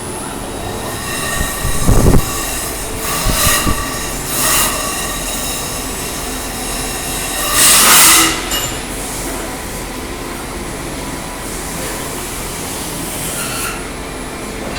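Mini CNC router's stepper motors whining as the axes move in a series of short runs over a steady mechanical hum, with the loudest moves about two seconds in and near the middle.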